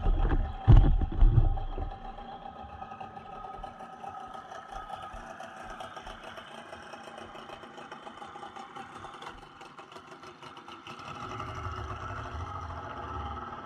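Tohatsu 30 two-stroke outboard idling with a steady hum, then picking up revs near the end as the mini boat pulls away. A few loud low thumps in the first two seconds.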